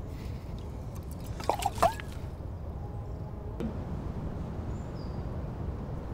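Water splashing and glugging briefly, a few quick liquid plops about one and a half to two seconds in, over a steady low rumble.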